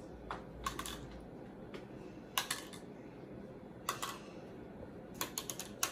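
Small egg-dye tablets dropped one at a time into empty clear plastic cups: a few light, separate clicks, with a quick run of them near the end.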